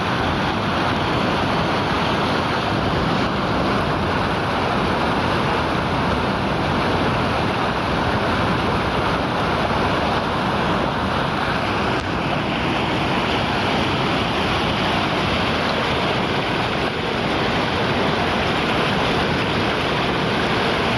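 Fast-flowing river water rushing loudly and steadily.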